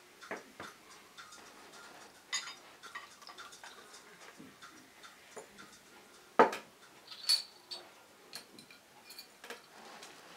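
Carbonated soda fizzing in glass wine glasses, a fine crackle of popping bubbles. Several clinks and knocks of the glass bottle and glasses on the tabletop come through it; the loudest is a sharp knock about six seconds in.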